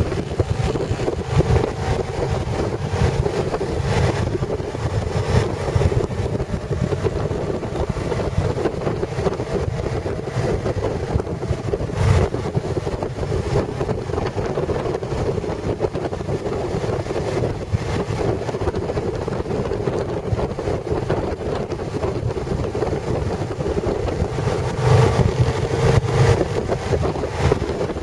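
Motorcycle riding along at a steady pace: steady engine drone mixed with wind buffeting the microphone.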